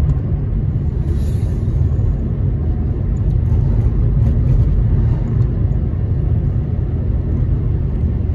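Steady low rumble of a car's engine and tyres on the road, heard from inside the cabin while the car drives along.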